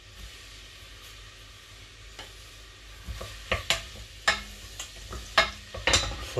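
Chopped onion sizzling faintly in oil in a stainless steel pot, and from about three seconds in a spoon stirring it, knocking sharply against the pot several times.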